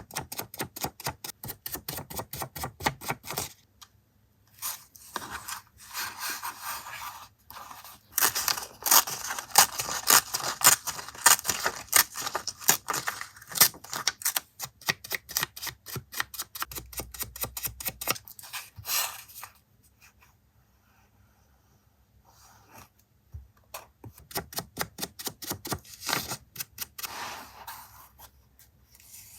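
Close-up paper-crafting sounds: long runs of quick, crisp clicks, several a second, with a lull of a few seconds past the middle.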